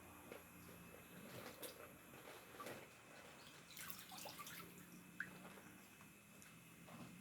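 Faint, scattered drips and small trickles of water from a plastic bag of fish fry being handled over the tank.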